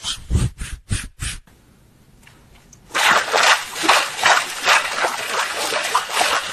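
A few short, deep, animal-like grunting bursts that stop about a second and a half in. After a quiet pause, a rhythmic splashing of water starts about three seconds in. These are sound effects generated from vocal imitations.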